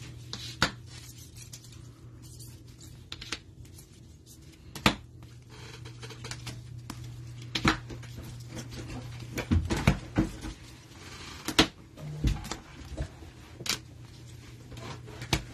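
Rigid plastic toploader card holders clicking and tapping against one another as a stack of cased trading cards is handled and sorted through. The sharp clicks come at irregular intervals over a steady low hum.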